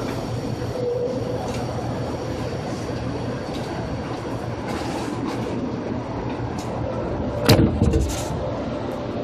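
Seibu 2000 series electric train running: a steady rolling rumble with scattered faint clicks. About seven and a half seconds in comes a loud sudden burst, followed by a second, shorter one.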